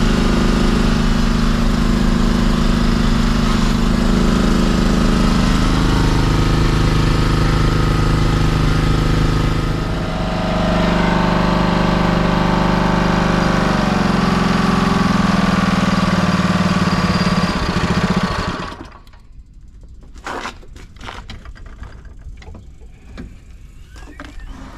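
Small OHV four-stroke petrol engine of a LUKAS hydraulic rescue-tool power unit running steadily, its tone changing about ten seconds in, then shut off about eighteen seconds in. A few clicks and knocks follow as the unit is handled.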